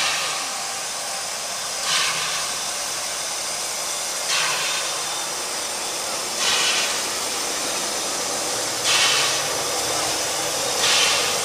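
Puffing Billy's narrow-gauge NA class 2-6-2T steam locomotive 12A moving at a crawl with its cylinder drain cocks open. There is a steady hiss of steam, with a louder chuff of steam about every two seconds.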